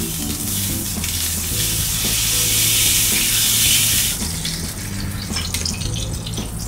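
Fish steak sizzling as it sears in hot oil in a nonstick frying pan. The sizzle swells for a couple of seconds, then drops off about four seconds in as the fish is slid out of the pan onto a plate.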